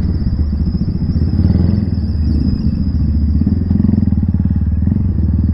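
Motorcycle engine running steadily as the bike is ridden, heard from the saddle, with a thin steady high whine above it.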